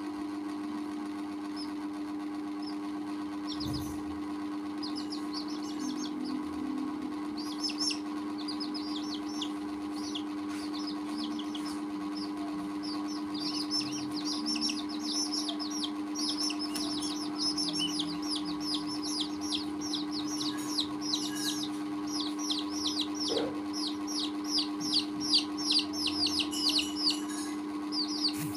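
Chicks peeping: short, high, falling chirps, a few scattered at first, then a rapid unbroken run from about halfway through that grows louder toward the end. A steady low hum runs underneath.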